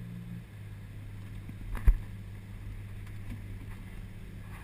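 Detroit Diesel 6-71 two-stroke marine diesel running steadily under way, its note dropping slightly about half a second in. A single sharp knock is heard near two seconds in.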